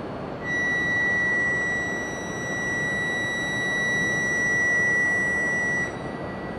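Electronic departure buzzer on a shinkansen platform: one steady, high, unbroken tone for about five seconds that cuts off sharply. It is the signal that the doors are about to close and the train is about to depart. Steady platform noise runs underneath.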